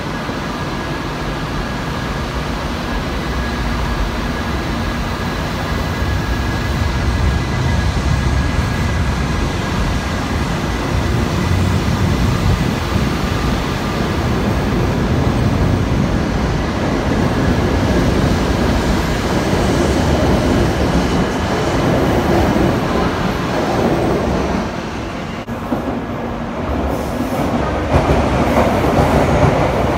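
Shinkansen train running through the station platform area, its rolling and running noise building steadily louder. The noise dips briefly about 25 seconds in, then returns louder.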